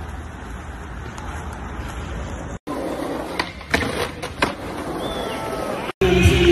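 Skateboard wheels rolling on concrete. After a cut, a skateboard pops, grinds its trucks along a concrete ledge and clacks back down, giving a few sharp knocks close together. Music begins near the end.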